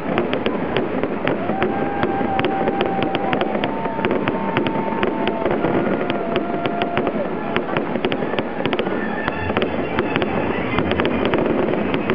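Aerial fireworks shells bursting overhead: a dense, unbroken run of sharp bangs and crackles, many to the second, over a constant wash of noise.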